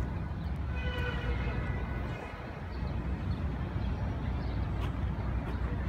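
Outdoor ambience picked up by a handheld smartphone's microphone while walking: a steady low rumble, with a brief high-pitched voice-like call about a second in.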